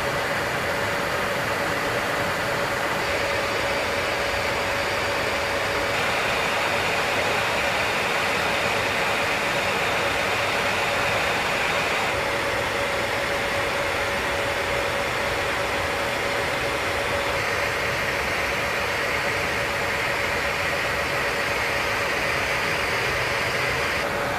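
B-52 bomber cockpit in flight: a steady rushing drone of engines and airflow, with one steady mid-pitched hum running through it. The character of the noise changes slightly every few seconds.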